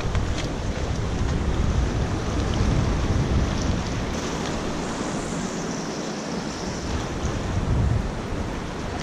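Wind buffeting the microphone over waves washing against jetty rocks, a steady gusty rumble that eases briefly midway.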